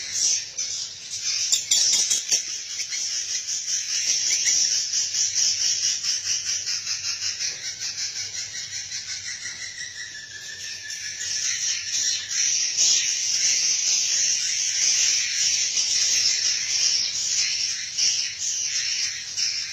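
A flock of swiftlets chirping and twittering, a dense, continuous high-pitched chatter of rapid pulsing calls.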